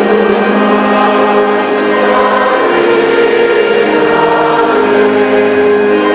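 Mixed church choir singing a slow hymn in long, held chords that change every second or so.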